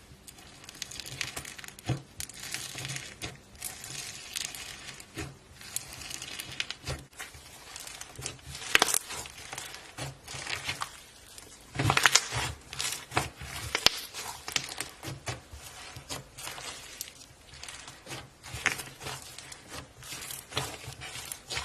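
Fluffy slime made with shaving cream being squeezed and pressed by hand: irregular crackling and popping of small air bubbles, with louder clusters about nine seconds in and again around twelve to fourteen seconds.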